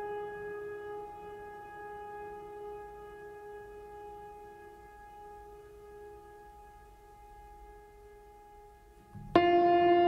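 Slow ambient background music: a long held note slowly fading away, then a new, louder held note at a slightly lower pitch starting abruptly near the end.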